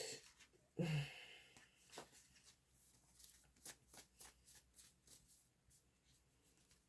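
Faint handling of tarot cards: a run of light, separate clicks and taps as cards are shuffled or drawn, after a brief louder low sound about a second in.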